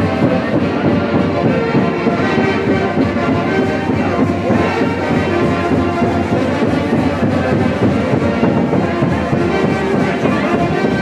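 Brass band music playing loudly and without a break: trumpets and trombones holding notes over a steady beat.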